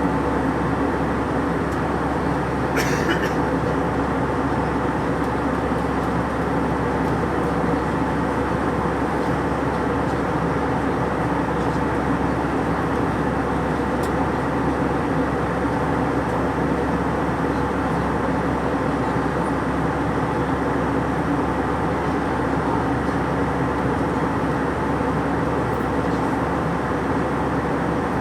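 Steady cabin noise inside an Airbus A320 airliner in flight: an even rush of air and engine hum with a few faint steady tones. A brief higher-pitched rustle about three seconds in.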